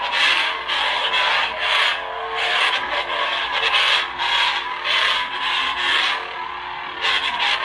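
Adawlert lightsaber's sound board playing its electronic blade hum, with repeated swing swooshes that swell and fade every second or so as the hilt is waved.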